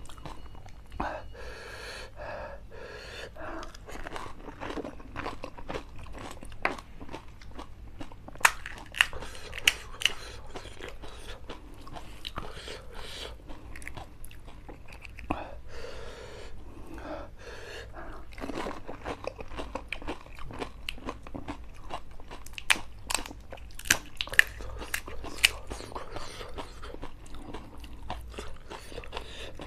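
Crisp pani puri (golgappa) shells being cracked open and crunched between the teeth, with chewing and wet mouth sounds. Several loud sharp cracks come about eight to ten seconds in and again past twenty seconds.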